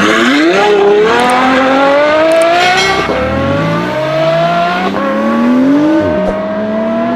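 Car engine accelerating hard through the gears: its pitch climbs steadily, drops sharply at a gear change about three seconds in and again about six seconds in, then climbs again.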